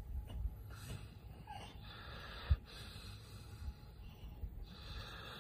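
A large dog breathing noisily through its nose as it dozes, several separate breaths, with one short thump about two and a half seconds in.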